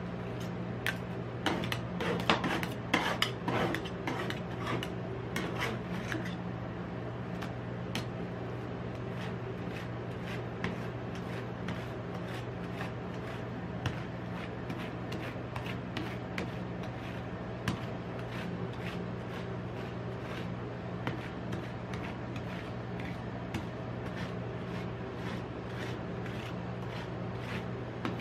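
Metal spatulas chopping and scraping ice cream on a stainless steel cold plate: quick taps and clicks, busiest a few seconds in, then steadier scrapes as the ice cream is spread into a thin sheet. A steady low hum runs underneath.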